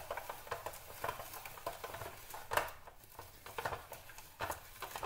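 Hand-cranked countertop vegetable spiraliser cutting a courgette into spiral strips: irregular crunching of the blade through the courgette and clicking of the plastic frame.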